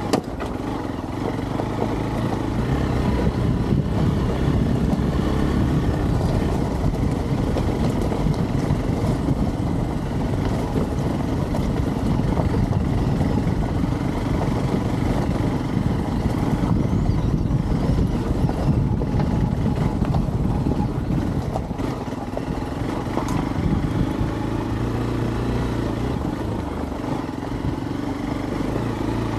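Hero Xpulse 200's single-cylinder engine running as the motorcycle is ridden off-road over rough, rocky ground. The engine note is steadier near the start and again over the last few seconds.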